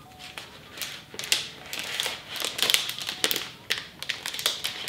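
Thin clear plastic protective wrap crinkling and rustling in irregular bursts as it is peeled off a new iPad Pro.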